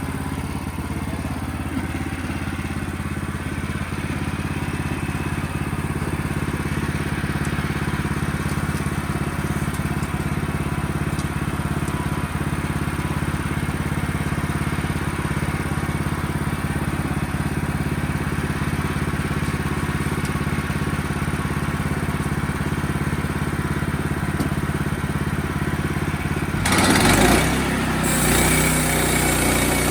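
An engine running steadily at a constant speed. About 27 seconds in, a louder rushing noise comes in, briefly drops back, then carries on, and the engine note changes with it.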